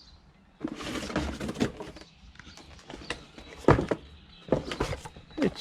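A fabric tool roll bag being handled: rustling for a second or so, then a few sharp knocks and clunks, likely from the tools inside.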